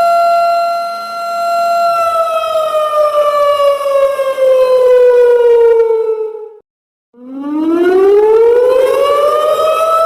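Loud wailing siren sound effect: a steady tone that starts sliding slowly down in pitch about two seconds in, cuts out for about half a second, then climbs back up and holds steady again near the end.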